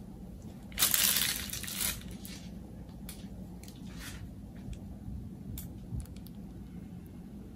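Handling noises of a red soap bar and a plastic piping bag being moved by gloved hands: a loud rustle about a second in, then a few light clicks and taps, over a faint steady hum.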